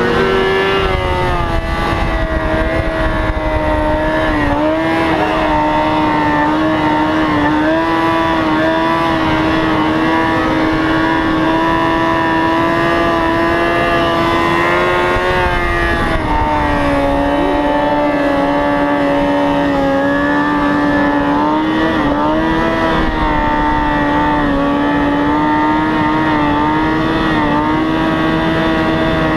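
A motorcycle engine held at high, steady revs, its pitch wavering slightly with the throttle and stepping down a little about halfway through.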